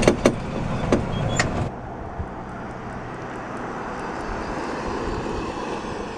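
Electric golf cart rolling, a steady run of tyre and wind noise with no engine note. In the first second and a half come four sharp clicks and knocks.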